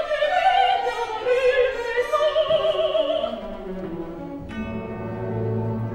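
A woman's operatic voice singing a French line with strong vibrato over an orchestra, breaking off a little over three seconds in. The orchestra then continues alone, a falling line settling into low held notes.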